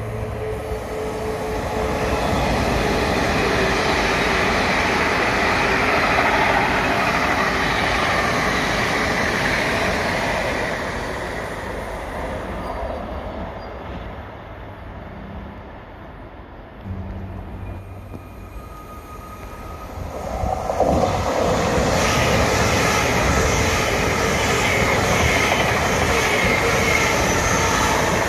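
Trains passing close on the main line. A Great Western Hitachi express passes first. After a quieter spell, from about two-thirds in, a train of Class 455 electric units hauled by a GBRf Class 66 diesel locomotive comes by suddenly loud, with wheel-on-rail noise.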